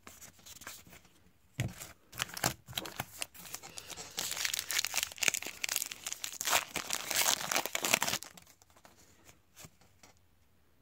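Plastic foil wrapper of a trading card pack crinkling and tearing in the hands, in dense crackles that start about a second and a half in, grow loudest in the second half and stop about 8 seconds in.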